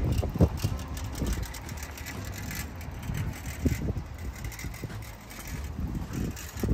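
Street traffic: the low rumble of a car's engine and tyres, with a few short knocks.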